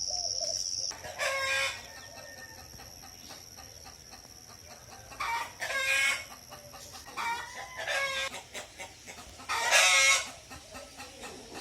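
Roosters crowing, a string of crows one after another, the loudest about ten seconds in. A steady high insect trill stops about a second in.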